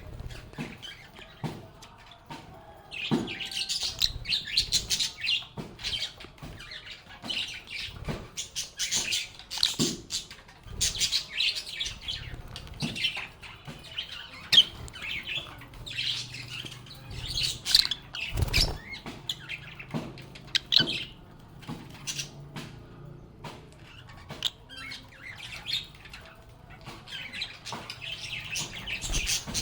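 Lovebirds chirping and chattering in dense bursts of short, high calls, with a few sharp knocks in between.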